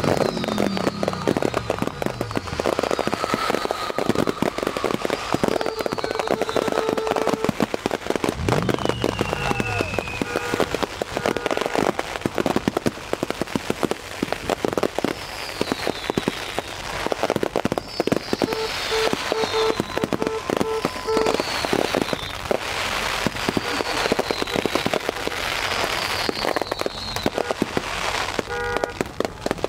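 Fireworks display going off: a dense, continuous run of crackles and bangs from bursting shells, with several high falling whistles.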